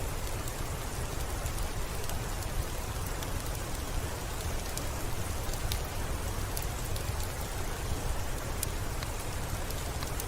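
Steady rain falling, an even hiss with scattered sharp, high ticks of single drops.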